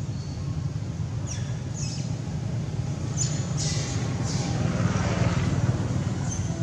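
Outdoor background noise: a steady low rumble with a few short, high chirps in the first half.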